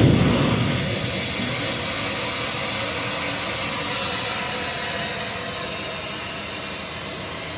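Steady hiss of compressed air being released from a diesel portable air compressor, with thin high whistling tones in it, slowly fading. The engine noise has just cut off.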